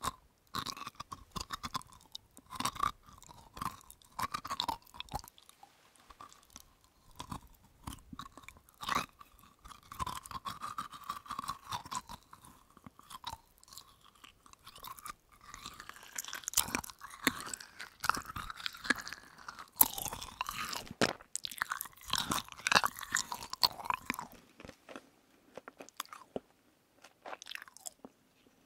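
Close-miked chewing of a gummy berry jelly studded with small sugar beads: sticky chewing broken by many small crunches and clicks. It is busiest in the middle stretch and thins out for the last few seconds.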